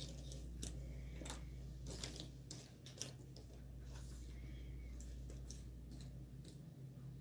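Cardboard jigsaw puzzle pieces being handled on a wooden table: scattered light clicks and taps as pieces are picked up, slid and set down, over a steady low hum.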